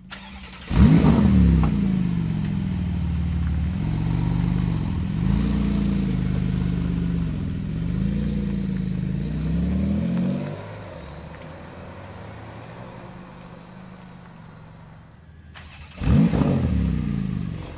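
Porsche 991 GT2 RS twin-turbo flat-six starting up with a loud flare about a second in, settling into a high idle whose pitch rises and dips a few times, then dropping to a lower, quieter idle about ten seconds in. Near the end a second GT2 RS starts with the same loud flare and settles.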